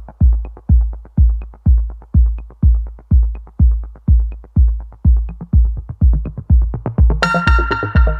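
Electronic background music: a steady deep kick drum about twice a second, with a bright synth layer coming in near the end.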